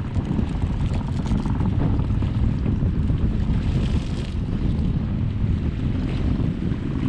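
Wind buffeting the microphone, a steady low rumble, with a few faint sharp pops of distant fireworks about a second in.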